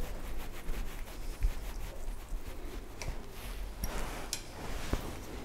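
Hand work with an Allen key on small cap screws in a back plate on a cast-iron machine knee: light rubbing and handling noise with a few scattered sharp metallic clicks.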